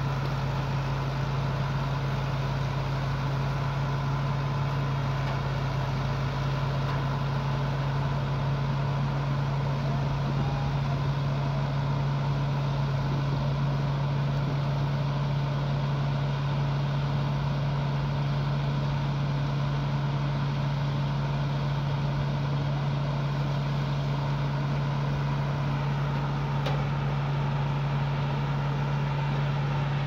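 Tractor-driven rice thresher running steadily: the tractor's diesel engine turning the threshing drum, with a constant low hum that does not change.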